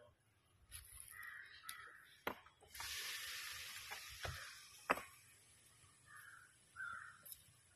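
Crows cawing a few times in the background. A stretch of hiss runs through the middle, with a few sharp clicks, the loudest just before five seconds in.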